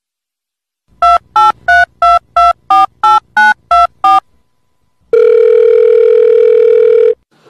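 Telephone keypad tones: ten quick two-note beeps, about three a second, as a number is dialed. After a short pause comes one steady tone of about two seconds.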